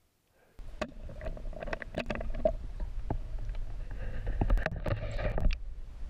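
Muffled underwater sound from a camera below the surface: a continuous low rumble of water against the housing, with scattered clicks and knocks. It starts abruptly about half a second in.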